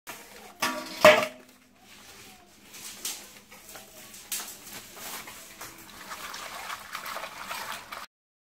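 Hands rubbing and washing cut spotted snakehead fish pieces in water in an earthenware bowl: irregular wet squelching and splashing, busier near the end. Two sharp knocks about a second in, the second the loudest sound here.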